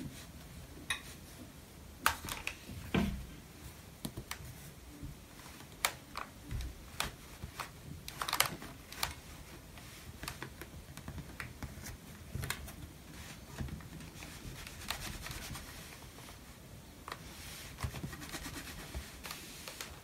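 Handling sounds at an ironing board: fabric being folded over a plastic ironing ruler and an iron pressed and slid along the fold. Scattered light clicks and taps, with a few soft thumps.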